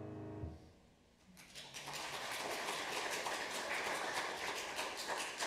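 A piano's final chord dies away about half a second in, and after a short pause a congregation breaks into steady applause.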